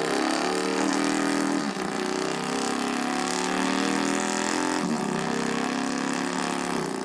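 A man imitating a Harley-Davidson motorcycle engine with his voice: a steady, held engine note with two brief breaks, about two and five seconds in.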